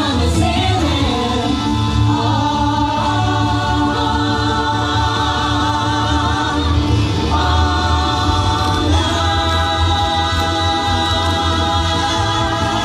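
Loud music with sung vocals: long held notes with vibrato over a steady bass line.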